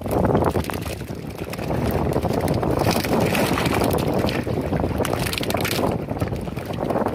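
Wind buffeting the microphone: a steady, loud, uneven rumble.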